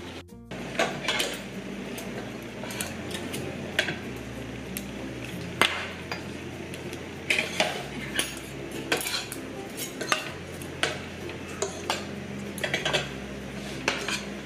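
Cutlery clinking and scraping against a plate as rice is mixed and eaten: irregular, scattered clinks.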